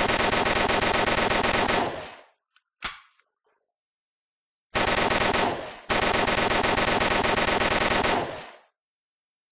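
MAT-49 submachine gun firing long fully automatic bursts, an even rapid rattle of shots. The first burst stops about two seconds in and is followed by a single sharp click. A second long burst starts near the middle, falters briefly, and ends about a second before the end.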